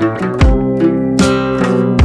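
Guitar music with a steady low beat, played loud through a loudspeaker driven by a homemade TDA2006 amplifier in a sound test.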